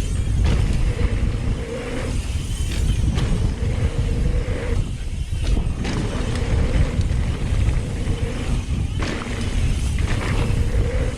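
Mountain bike riding down a dirt jump line: heavy wind rumble on the microphone and tyres rolling over dirt, with several brief lulls in the tyre noise.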